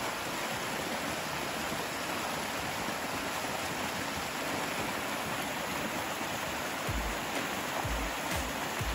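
Small stream cascading down a narrow sandstone chute: a steady rushing of water. A few low thumps come in during the last two seconds.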